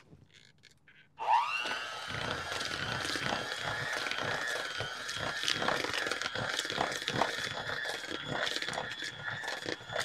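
Electric hand mixer switched on about a second in, its motor whine rising quickly and then running steady, with the beaters knocking and scraping irregularly as they churn a cream cheese and green chili mixture in a plastic bowl.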